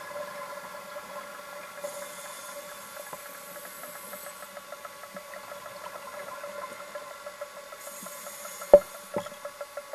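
A steady mechanical hum that pulses regularly about four to five times a second, with two short stretches of high hiss. Two sharp knocks come near the end, the first the loudest sound.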